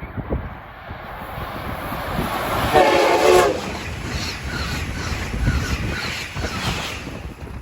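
Passenger train running past with one short horn blast about three seconds in, then its wheels clicking evenly over the rail joints.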